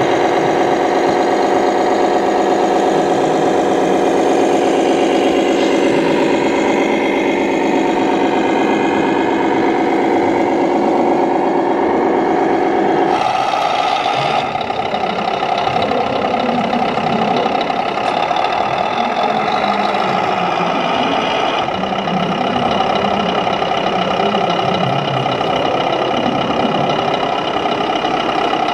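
Simulated truck diesel engine running, played by the electronic sound modules of 1/14-scale RC trucks through their small speakers. About halfway through the sound changes abruptly to a different engine sound.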